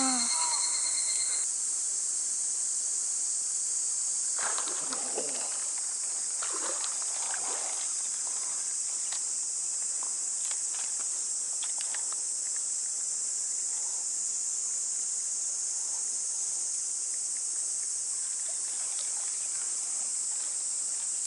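A chorus of insects shrilling steadily and high-pitched, with no break or change.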